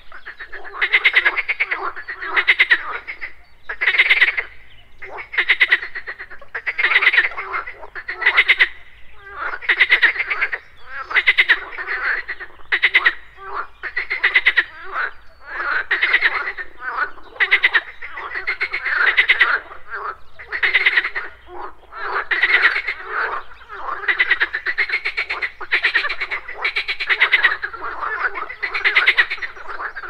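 A chorus of frogs croaking without pause, overlapping calls repeating about once a second, each a quick rattling run of pulses.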